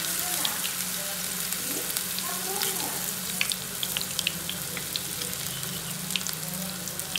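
Chicken vadas deep-frying in hot oil: a steady sizzle with scattered small crackles and pops.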